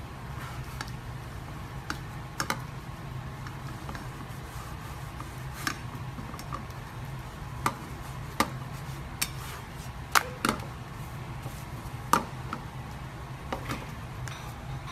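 Spatula clicking and scraping against a nonstick frying pan as a pancake is worked loose and flipped: a dozen or so sharp, irregular clacks over a steady low hum.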